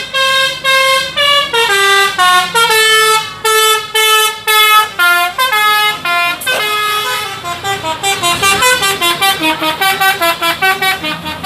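A telolet basuri musical horn playing a melody, one pitched note after another. The notes get shorter and quicker about halfway through.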